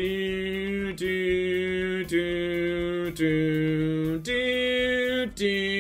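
A voice singing or intoning a slow tune without clear words: about five long held notes, roughly one a second, with the pitch stepping down and then up between them.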